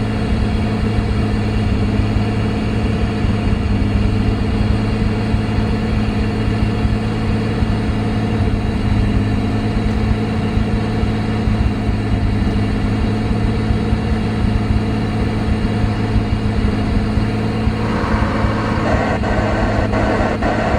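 Pontiac Fiero engine running steadily with an even, low hum. Music fades in during the last few seconds.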